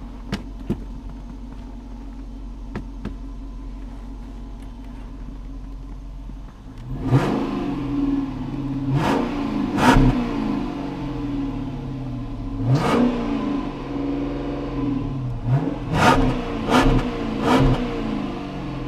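Cold Chrysler 300C 5.7 L Hemi V8 idling, then from about seven seconds in it is revved in about seven short throttle blips, each rising and dropping back to idle.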